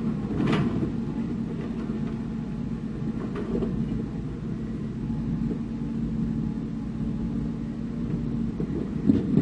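Heavy construction machinery's diesel engine running steadily with a low rumble and hum, with a metallic clank about half a second in and two loud knocks near the end.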